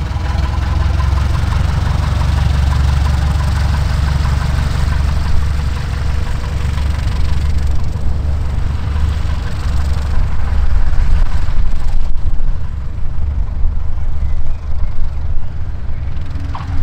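Light propeller aircraft's piston engine running steadily, with a strong deep rumble.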